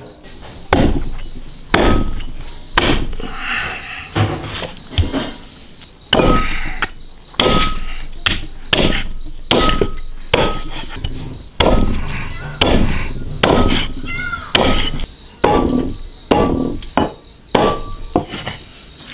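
Cleaver chopping a rack of spare ribs into pieces on a chopping board: a long run of heavy chops, about one or two a second. Crickets chirp steadily in the background.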